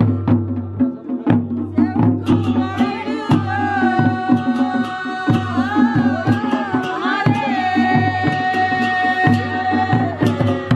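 Himachali folk music: drums beating a steady rhythm over a low drone, with a melody that comes in a few seconds in, wavers up and down, then holds one long steady note before dropping away near the end.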